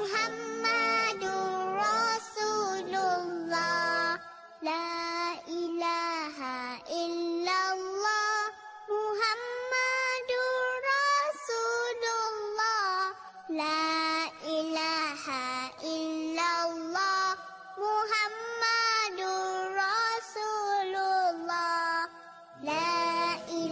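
Background music: a child's high voice singing a melodic chant, with short breaks between phrases.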